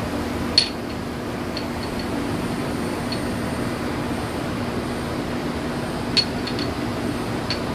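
Glassware clinking as pieces are picked up and set down: two sharp ringing clinks, about half a second in and about six seconds in, with a few lighter taps between, over a steady low background hum.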